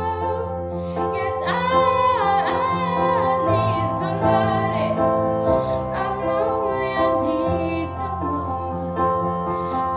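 A young woman singing a song solo with instrumental accompaniment, holding long notes with vibrato over steady sustained low notes.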